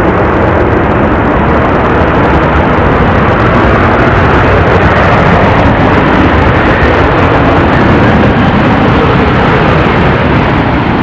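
Boeing 737-800 airliner's CFM56 turbofan engines making a loud, steady jet noise as the aircraft rolls out along the runway after touchdown, swelling slightly in the middle as it passes.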